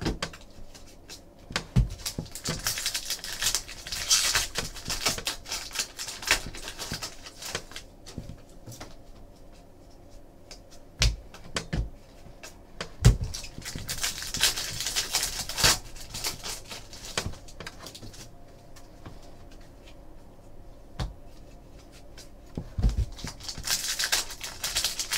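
A stack of trading cards being flipped through by hand, cards sliding against one another with a swish and clicking as each one is moved to the back, plus a few sharper taps on the table.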